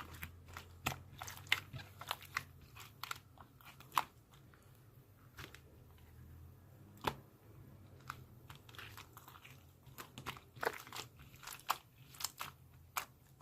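Slime being played with, making irregular sharp clicks and pops, a few of them louder.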